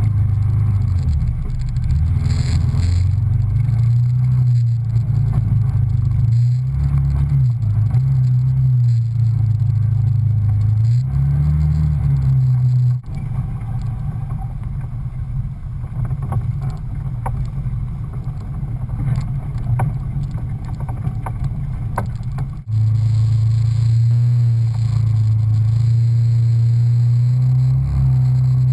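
Off-road vehicle engine running under load on a rough trail, its pitch rising and falling with the throttle. Partway through the sound drops suddenly to a quieter stretch full of small knocks and rattles, then the loud steady engine note comes back just as suddenly.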